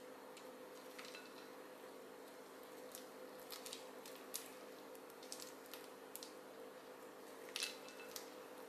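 Fish paste squished through a gloved hand and scooped off with a spoon, with scattered light clicks of the metal spoon against the ceramic bowl, the loudest a little past seven and a half seconds in, over a steady faint hum.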